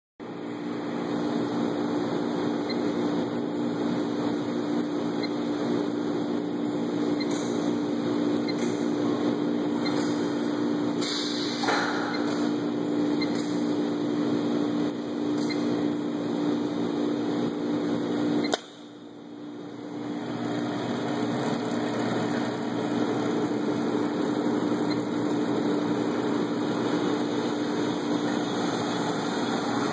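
Homag edge banding machine running with a steady motor hum and a strong low tone, with faint clicks in the middle. About two-thirds through the sound drops away suddenly, then builds back up over a couple of seconds.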